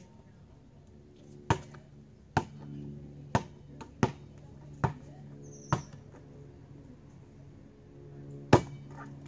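A series of sharp taps or clicks, about one a second, six in a row and then a louder one near the end, over a faint low steady hum.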